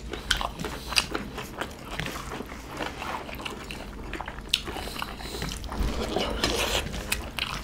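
Close-up mukbang eating sounds of two men eating smoked pork chagempomba porridge with their hands: wet chewing and biting, with many small sharp clicks and crackles.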